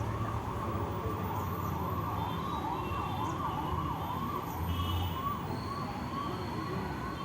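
A siren warbling rapidly up and down, about three sweeps a second, over a low steady rumble.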